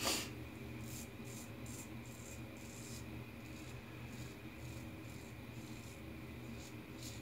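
Double-edge safety razor (Blackland Blackbird, Gillette Stainless blade) scraping across stubble in short, faint, irregular strokes: touch-up passes over a few spots.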